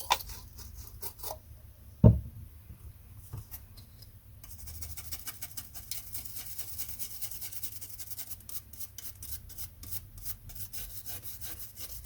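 Toothbrush scrubbing acetone over a circuit board's solder joints to clean off flux: a fast run of short bristle strokes starts about four seconds in. Before that come a few light clicks and one thump about two seconds in.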